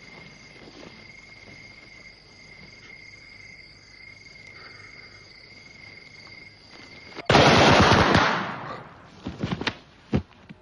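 Insects chirping steadily, then about seven seconds in a sudden loud volley of gunfire that rings on for a second or so, followed by a few separate shots near the end.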